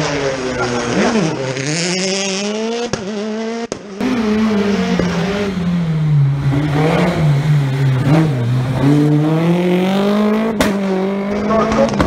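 Rally car engines revving hard and easing off as the cars brake and accelerate through a tight chicane, the pitch falling and climbing again several times. The sound breaks off abruptly about four seconds in and again near the end, where one pass cuts to another.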